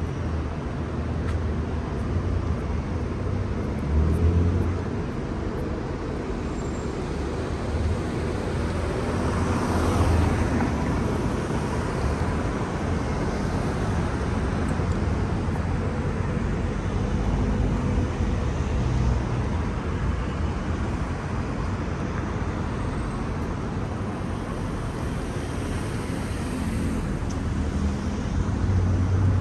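City street traffic: a steady rumble of cars, with vehicles passing closer and louder, swelling and fading, about ten seconds in and again near the end.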